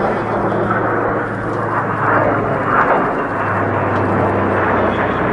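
Steady drone of aircraft engines as a formation of piston-engined warbirds, including a B-25 Mitchell, and a jet fighter passes overhead, with a low hum running through it.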